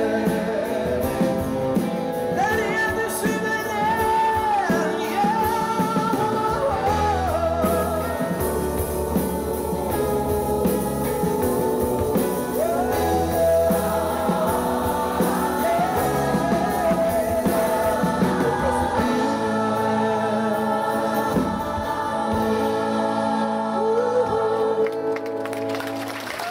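Live band and choir performing a song: acoustic and electric guitars, drums and keyboard under a sung melody with choir voices. The music dies away near the end.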